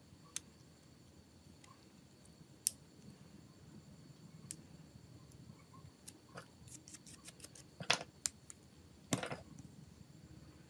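Scattered sharp clicks and small taps of small plastic phone parts and hand tools being handled, with a quick run of clicks in the middle and two louder knocks near the end.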